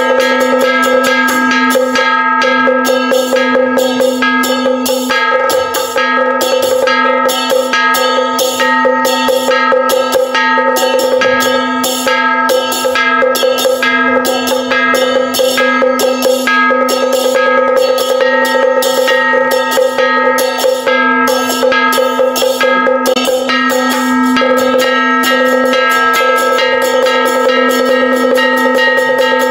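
Taoist temple ritual percussion: fast, continuous drum and wood-block strikes over a steady sustained ringing tone.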